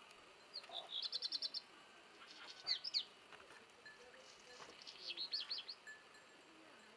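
A small songbird singing three short phrases of quick high notes: a rapid run of repeated notes about a second in, a brief sweeping phrase near three seconds, and another quick run about five seconds in.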